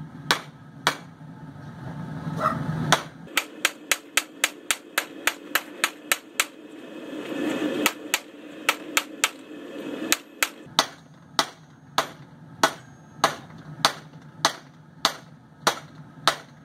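Hand hammer striking hot steel on an anvil while forging the boss of a split tong. Quick blows, about three a second, run for several seconds, then give way to slower, even blows about every half second. A low, steady rumble from the forge runs underneath.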